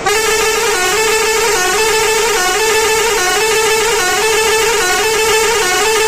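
A Pakistani bus pressure horn (air horn) sounding loudly without a break, its several tones shifting in a repeating pattern about once a second.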